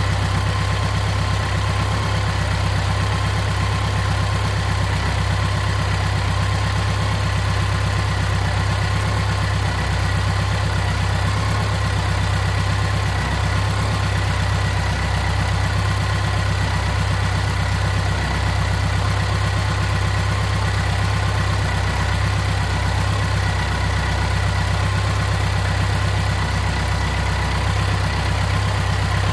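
BMW K100's inline four-cylinder engine idling steadily while its intake vacuum is read on a manometer to balance the throttle bodies.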